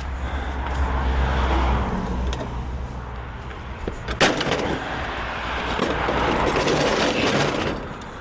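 Van's hydraulic tail lift running with a steady low hum, with one sharp metal clank about four seconds in as scrap is handled.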